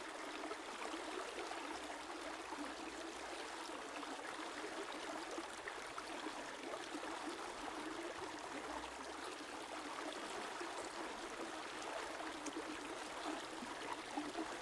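A river or stream flowing steadily, water running and trickling with an even rushing sound.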